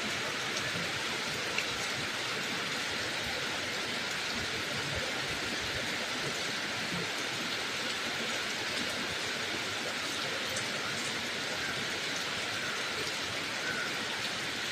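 Steady rain falling: an even hiss that holds at one level throughout, with a few faint drop ticks.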